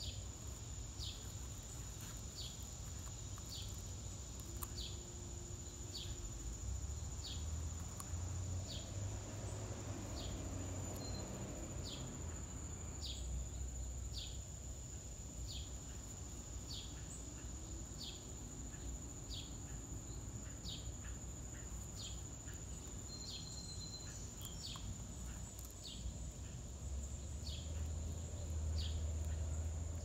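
Summer insect chorus: a steady high-pitched drone with a short chirp repeating about once a second, over a low rumble of wind.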